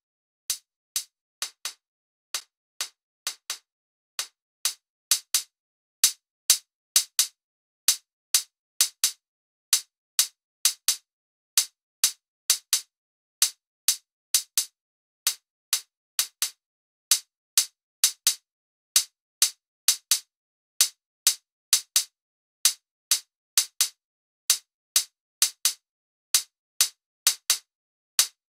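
A single short, sharp electronic percussion hit, bright with almost no bass, repeating in a drum-machine pattern of about two hits a second with silence between and some hits louder than others, played back on its own from a music production session at 130 BPM.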